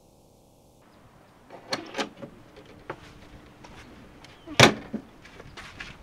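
Camp-trailer door being worked: two sharp clicks about two seconds in, then one loud bang as it shuts about four and a half seconds in, followed by lighter clicks and knocks.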